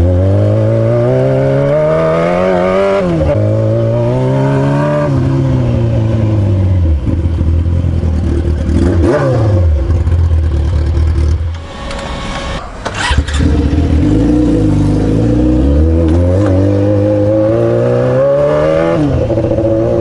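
Yamaha R6 inline-four sportbike running with its exhaust pipe removed (straight-piped), loud. The revs climb and drop in steps as it shifts up, ease off, dip briefly about twelve seconds in, then climb through the gears again.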